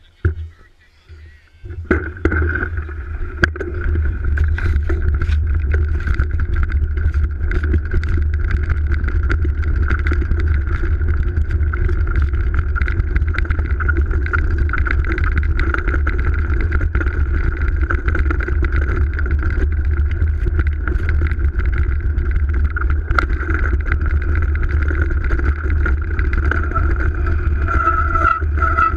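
Mountain bike riding over a snowy trail, heard from a camera mounted on the bike: after a short quiet moment with one knock, a loud steady rumble of wind and tyre noise sets in about two seconds in, full of frequent small knocks and rattles from bumps in the trail.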